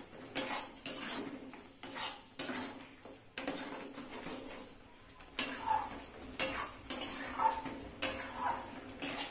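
Metal spatula scraping and stirring thick beetroot paste around a metal kadai, a run of irregular scraping strokes about one or two a second. The paste is being stirred constantly so it does not stick to the pan.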